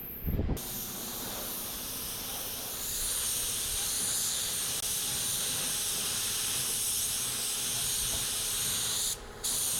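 A steady hiss, strongest in the high range, with a low thump right at the start. The hiss breaks off for a moment near the end, then comes back.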